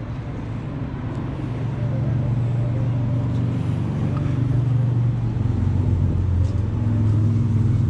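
A motor vehicle's engine running with a steady low hum. It grows louder over the first couple of seconds and then holds.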